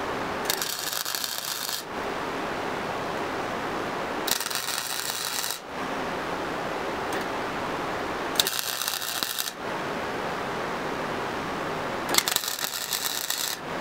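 A flux-core wire welder laying four short tack welds on a steel-tube go-kart frame. Each arc crackles for about a second and a half, a few seconds apart, with a steady hiss between them.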